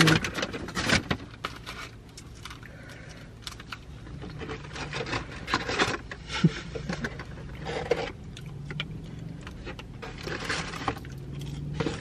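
Paper takeout bag and food wrappers rustling and crinkling as food is unpacked and handled, in irregular bursts, over a low steady hum.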